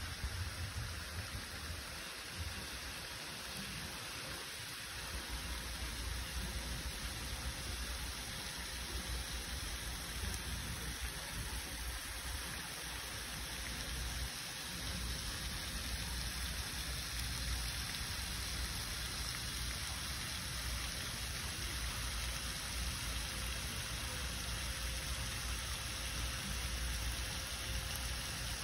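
Steady hiss of water from a pond fountain's spray falling back onto the pond, with an uneven low rumble underneath.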